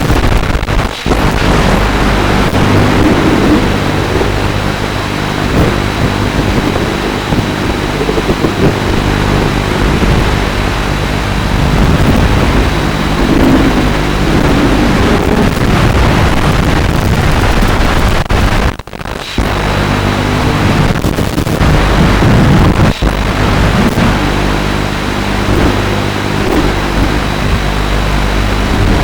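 FPV quadcopter's motors and propellers running hard, their pitch rising and falling with the throttle, with wind noise across the onboard microphone. The sound drops away sharply for a moment a little past halfway, then comes back.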